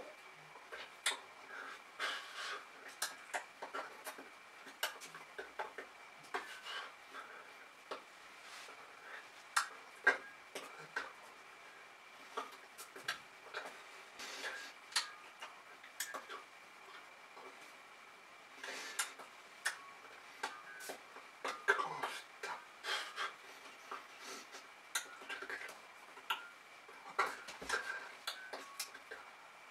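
Irregular soft clicks and taps from a signer's hands and mouth as he signs, some close together and some a second or more apart, over a faint steady high-pitched tone.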